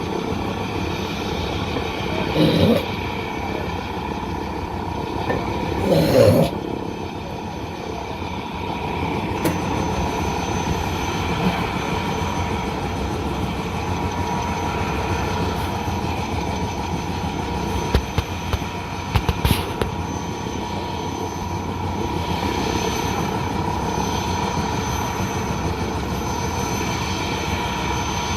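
Helicopter running steadily nearby, a continuous engine and rotor sound with a steady whine, broken by two brief louder bursts early on and a few sharp clicks about two-thirds of the way through.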